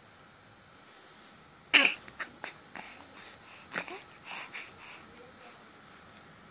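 A two-month-old baby's brief loud cry-like squeal with a falling pitch about two seconds in, followed by a run of short grunts, breaths and mouth clicks as she chews on a cable.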